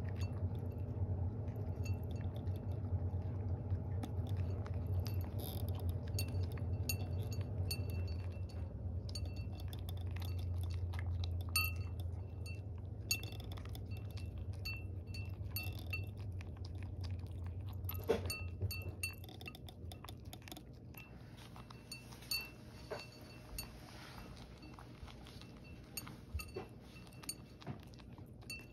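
A cat eating from a ceramic bowl, with repeated light, ringing clinks as the metal on its collar knocks against the bowl, and soft chewing. A steady low hum drops away about two-thirds of the way in.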